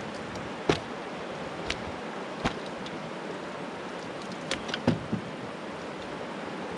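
Steady rush of flowing river water, with about half a dozen short, sharp knocks, the loudest near the start and about five seconds in.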